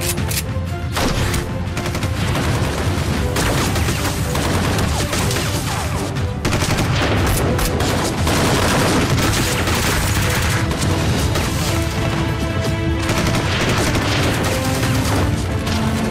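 Gun battle with rifles: many shots in quick succession from several guns, over dramatic background music.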